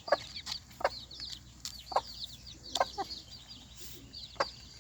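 Young chicks peeping over and over in high, rapid chirps, with a few short clucks from the mother hen.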